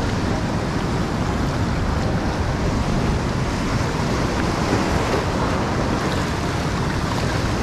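Rough sea surf washing steadily over shoreline rocks, with wind rumbling on the microphone.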